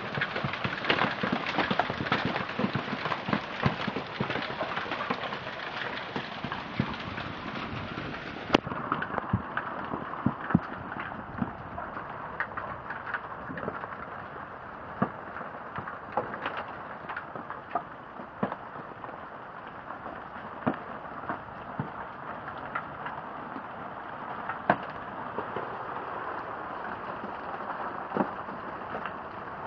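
Hail pelting the yard, wooden deck and patio furniture: a dense patter of impacts with many sharper separate cracks, heaviest for the first eight seconds or so and then easing a little.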